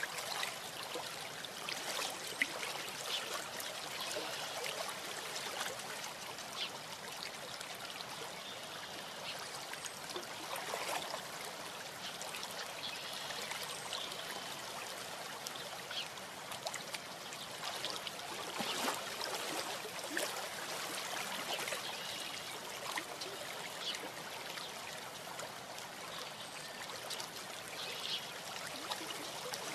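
Steady rushing, hissing outdoor noise on a nest webcam's microphone, with short faint high sounds now and then.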